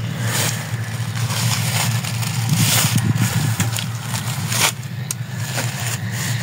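Deutz-Fahr AX 4.120 tractor's diesel engine idling steadily. Now and then there are short crunches of footsteps through dry corn stubble.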